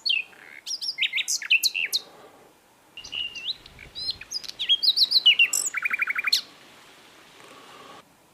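Hill blue flycatcher (sikatan londo) singing two phrases of quick, varied whistled notes. The second phrase ends in a fast run of about seven short notes, and the song stops for the last two seconds.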